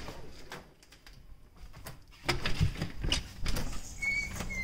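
A door being opened and stepped through onto a wooden deck: clicks and knocks of the door and footsteps, heavier from about halfway in, with two short high squeaks near the end.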